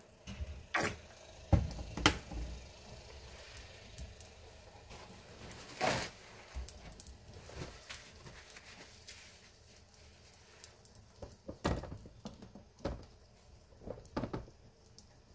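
Egg-battered seafood-and-mushroom pancakes sizzling faintly in oil in a wide pan, with a few sharp clicks and knocks, the loudest about a second and a half in and near six seconds.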